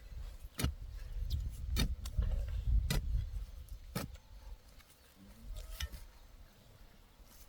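Four sharp knocks about a second apart from a hand tool striking, the work of building a swing, over a low rumble that fades after about four seconds; a few faint clicks follow.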